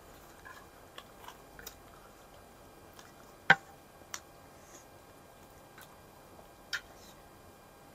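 Close-up eating sounds: quiet chewing of dry roti with a few sharp mouth and tableware clicks spread through, the loudest about three and a half seconds in.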